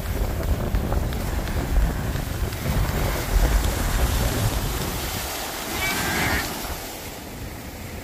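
Small waves breaking and washing up a sandy beach, with wind buffeting the microphone in a low rumble that eases off in the second half.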